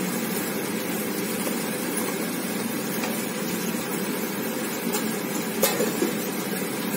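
Onions frying in oil in a kadai: a steady sizzle, with a few light clicks of a spatula against the pan, the clearest a little over halfway.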